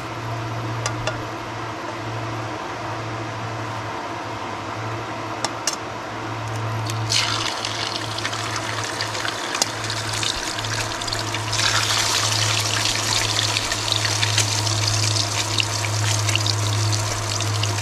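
Eggs frying in hot oil in a wok on an induction cooker. The sizzling starts suddenly about seven seconds in and gets louder a few seconds later, over a steady low hum.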